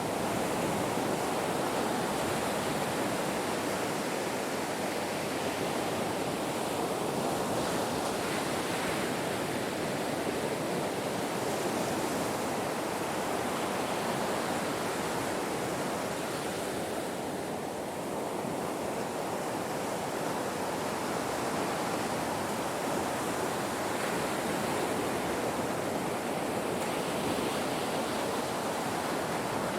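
Ocean surf breaking on a shore: a continuous rush of waves, with only mild swells in level.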